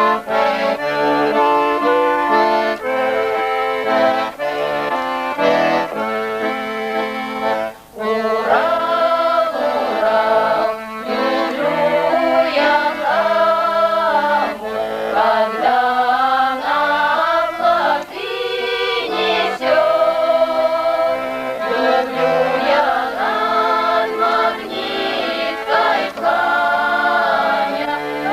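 Background music: an accordion playing a traditional tune, with a singing voice over it after a short break about eight seconds in.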